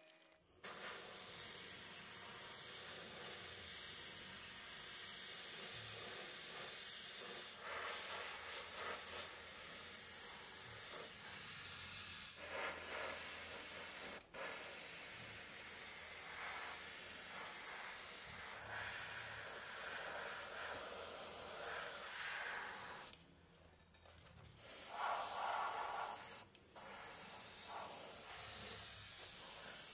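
Airbrush spraying paint: a steady hiss of air, broken by a few short pauses, one near the middle and a longer one about three quarters of the way through.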